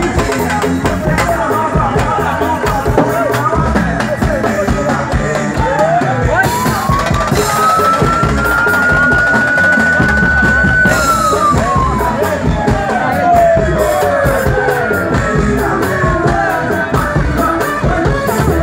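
Live band playing loud music with drums. Partway through, a long tone glides up, holds, then slides slowly down over several seconds.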